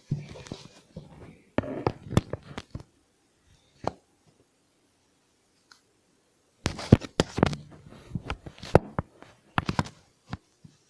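Rustling and sharp clicks and knocks of close handling and movement, in two bursts with quiet between.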